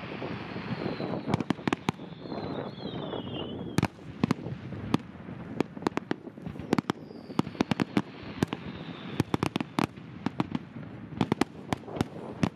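Aerial fireworks going off in quick succession: many sharp bangs over dense crackling. A high, wavering whistle falls in pitch twice.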